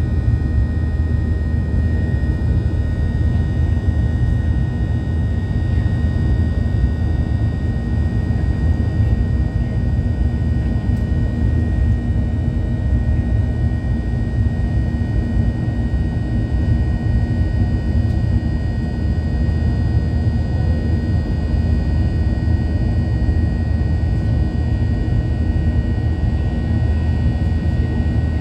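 Boeing 737-800 jet engines heard from inside the passenger cabin: a loud, steady low rumble with a constant high whine over it.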